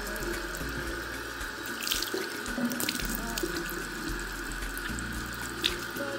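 Tap water running steadily into a sink, with a few splashes as the lips are rinsed clean of a sugar-and-toothpaste lip scrub.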